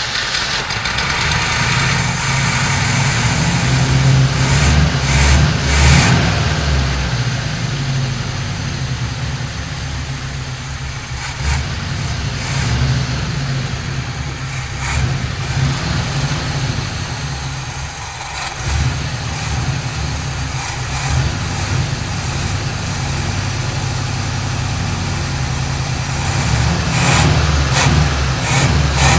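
The 1957 GMC 100 pickup's engine is running after years of sitting, its throttle worked by hand at the carburetor so the engine speed rises and falls a few times. It sounds worn ('whooped') but has no audible knock, which the owner takes as a sign that the engine did not seize.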